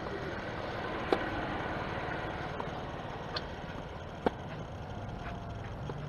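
Tennis ball struck by racquets during a rally: a sharp pop about a second in and another about four seconds in, with a softer one just before it, over steady outdoor background noise.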